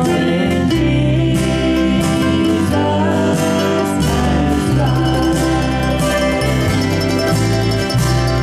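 Gospel quartet of two men and two women singing in harmony through microphones, over instrumental accompaniment with a steady bass line.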